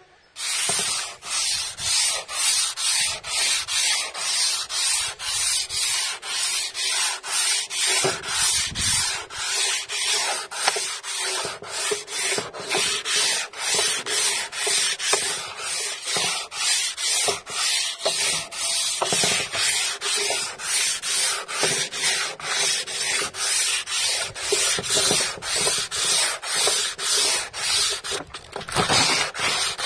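Hand sanding of old painted wooden boards with a sanding block and coarse sandpaper: steady back-and-forth rasping strokes, about two a second, starting about half a second in.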